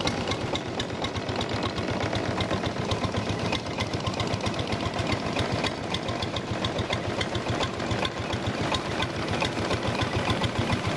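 Motorboat engine running steadily under way, a fast, even chugging knock.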